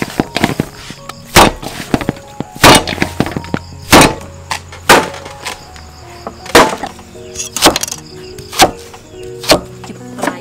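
Heavy chopping strokes on wood: about eight hard, sharp blows roughly a second apart, over background music.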